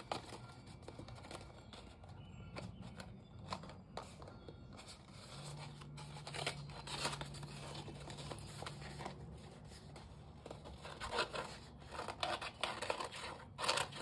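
Folded paper being handled and rubbed: rustling and short scratchy strokes as fingers press and smooth masking tape along a paper edge. The strokes come more often near the end.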